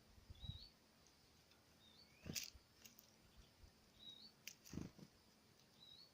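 A small songbird calling faintly, a short high chirp repeated about every two seconds, with two knocks about two and five seconds in.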